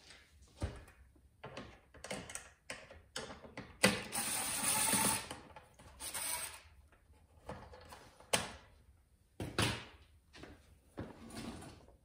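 Cordless drill/driver backing out dash panel screws in short runs. The longest run starts about four seconds in and lasts a second and a half, a shorter one follows about two seconds later, and there are scattered clicks and rattles of the tool and panel between them.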